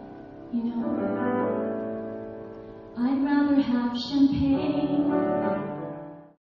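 A woman singing long held notes with grand piano accompaniment. The music fades out abruptly near the end.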